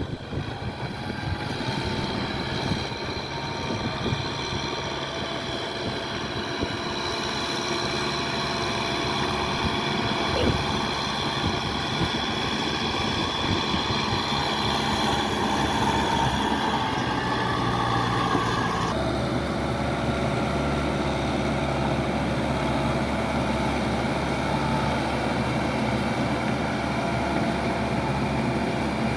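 Kubota farm tractor's diesel engine running steadily as it works a muddy rice field. About two-thirds of the way through, the engine note changes abruptly.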